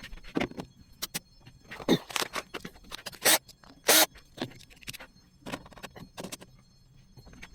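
Irregular knocks, clicks and scrapes of hard objects being handled, about a dozen uneven strikes, the loudest around the middle.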